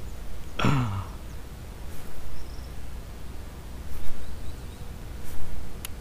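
A man's short falling vocal sound, like a sigh, just under a second in, then a steady low background rumble with a few swells and a couple of faint clicks near the end.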